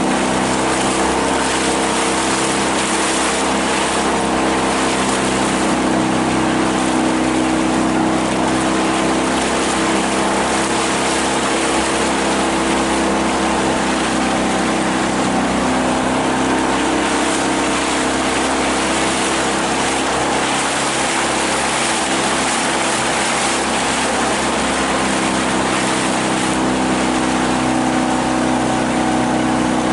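Outboard motor running steadily with the boat under way, over a constant rush of water and wind.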